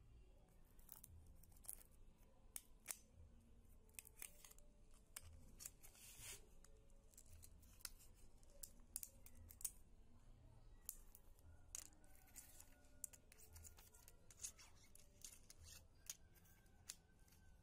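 Quiet crackling and clicking of thin plastic film layers from a shattered camera LCD screen as they are peeled apart and handled: irregular sharp ticks, with a longer crinkle about six seconds in.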